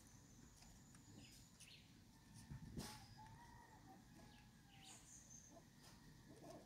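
Faint outdoor background: small birds chirping, and a distant rooster crowing once for a couple of seconds near the middle. A single soft knock about three seconds in.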